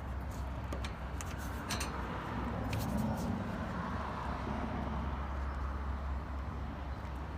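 Steady low background rumble with a few light clicks and knocks in the first few seconds.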